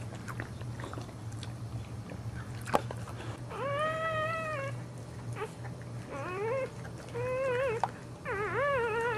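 A dog whining: four drawn-out, wavering whines, the first the longest, starting about three and a half seconds in. A single sharp click comes just before them.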